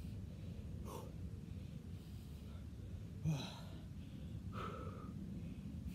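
A man breathing hard from the effort of split lunges, with a few short, forceful exhales; the loudest comes a little after three seconds in. A steady low rumble runs underneath.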